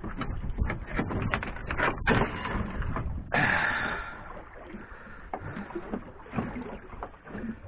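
Handling noise from a camera being moved about on its mount: quick knocks, clicks and scrapes, with two longer rushes of noise about two and three and a half seconds in, then fainter scattered knocks.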